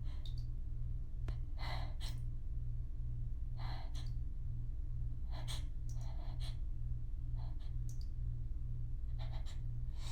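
A woman's short, catching breaths every second or two as a sneeze builds, over a steady low hum that pulses evenly.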